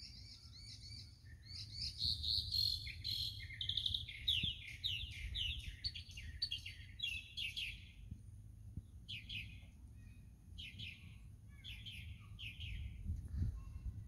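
Songbirds singing: quick runs of high, down-slurred chirping notes, busiest in the first eight seconds, with a few more phrases later. Underneath is a low rumble of wind on the microphone.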